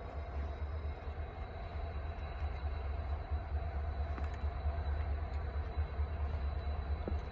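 Ontario Northland diesel train approaching, a low rumble that slowly grows louder.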